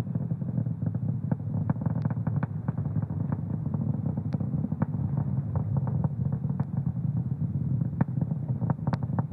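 Falcon 9 first stage's nine Merlin engines firing in flight just past Max Q, heard through an onboard microphone: a steady low rumble with frequent sharp crackles.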